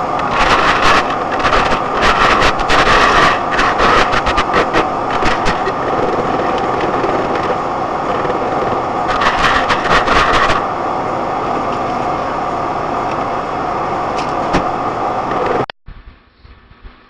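Vehicle driving in icy winter conditions: steady loud road noise with bursts of many sharp clicks and cracks in the first part. It drops abruptly to a much quieter sound near the end.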